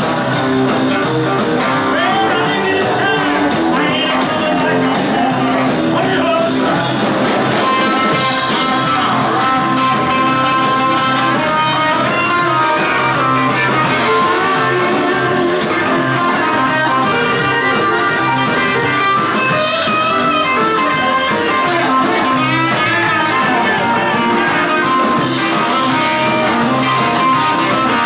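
Live rock and roll band playing, with a cutaway acoustic guitar being picked through the amplified mix.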